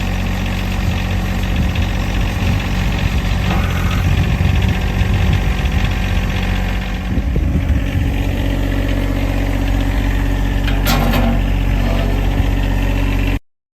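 Tractor engine running steadily, its note changing about halfway through. It cuts off abruptly near the end.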